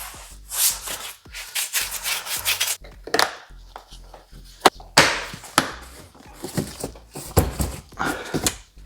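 Hands working on a BMW door mirror assembly: irregular rubbing and scraping strokes with a few sharp clicks as parts are fitted together.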